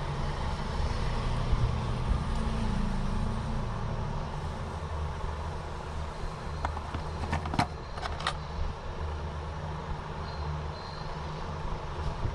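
A steady low background rumble, with a few small sharp clicks a little past the middle as small electronic parts are handled.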